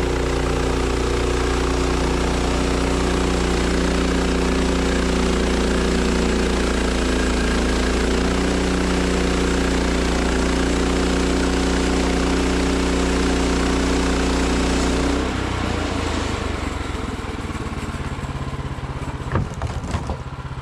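Sawmill engine running at working speed while the saw cuts through a log, a steady hum under a broad cutting noise. About fifteen seconds in the cut ends and the engine drops to a quieter idle, with a couple of knocks near the end.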